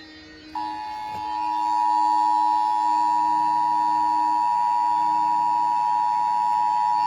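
Emergency Alert System two-tone attention signal over broadcast radio: a loud, steady two-note tone that starts about half a second in and holds without change. It announces an emergency alert that is about to be read.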